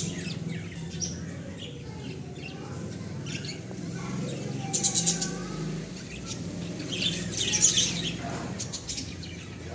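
A flock of budgerigars chirping and chattering, with a quick run of sharp chirps about five seconds in and a louder burst of chatter around eight seconds. A low steady hum runs underneath.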